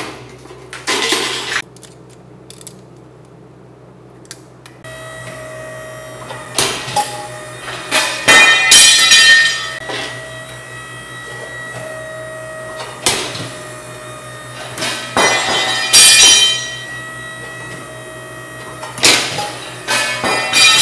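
Ironworker shearing 1/4-inch steel flat bar: the machine's motor starts about five seconds in and hums steadily, with a sharp cut and clank of steel every three or four seconds.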